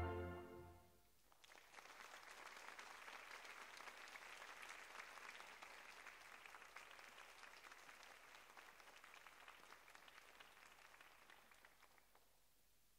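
Faint audience applause, a steady patter of many hands clapping that starts after the music's last note has died away and fades out near the end.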